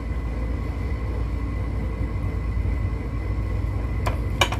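Steady low background rumble with a faint hum, and two light clicks near the end.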